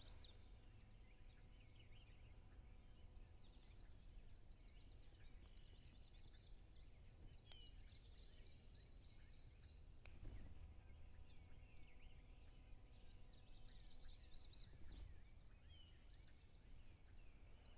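Faint outdoor birdsong: several birds chirping and giving quick trills of high notes over a low, steady background rumble.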